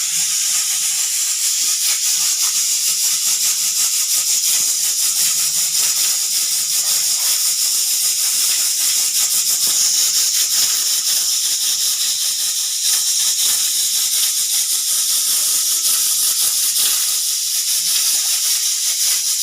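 Pressure cooker whistle venting steam: a loud, steady high hiss with a fine, fast flutter, held without a break.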